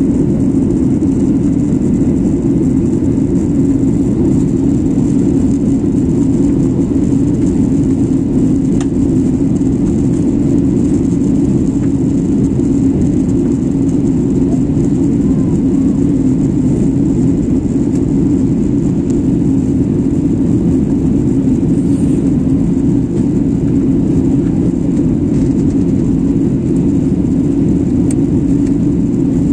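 Jet airliner cabin noise on the approach to landing: the steady drone of the engines and rushing air, deep and unchanging.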